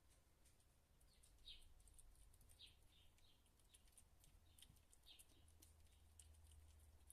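Faint short, high-pitched squeaks from 26-day-old kittens, about seven of them, over soft scratchy clicking and rustling as they move about.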